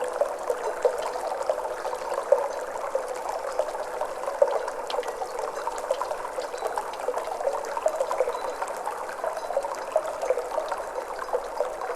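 Flowing water trickling and babbling steadily, a dense patter of small splashes and drips.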